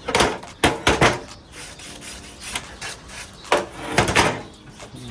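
Knocks and scrapes of a circular saw and its parts being handled on a Triton work bench. They come in two short clusters, one at the start and one about three and a half seconds in.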